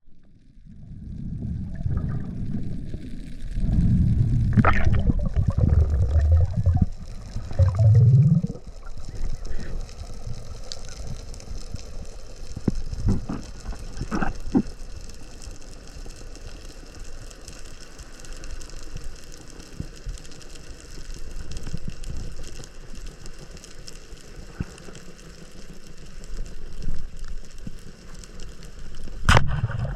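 Underwater sound around a diver's camera: heavy low water rumble and gurgling in the first several seconds, then a steadier hiss broken by a few sharp clicks, the last of them shortly before the end.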